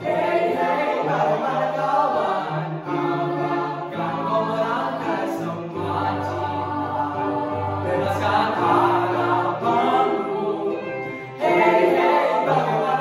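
Mixed-voice school choir singing a cappella in parts, a bass line of held low notes under the upper voices. A short break about eleven seconds in, then a louder entry.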